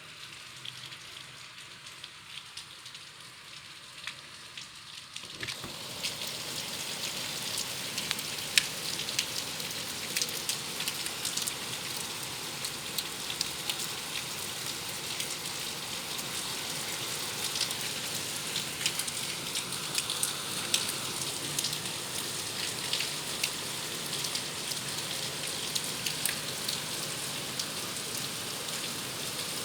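Steady rain falling, a dense hiss of drops with many sharp individual drop strikes. The sound becomes louder and fuller about five seconds in, then holds steady.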